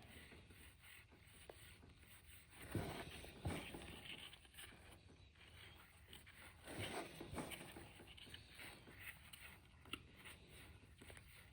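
Faint rustling and sliding of trading cards being handled, with a few brief scrapes about three seconds in and again around seven seconds; otherwise near silence.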